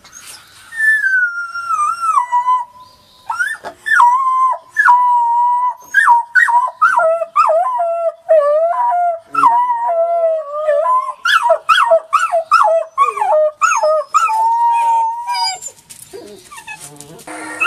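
Wolf pups howling together: a first long howl slides downward, then two voices overlap, one higher than the other, wavering and broken by short rising yips, before trailing off near the end.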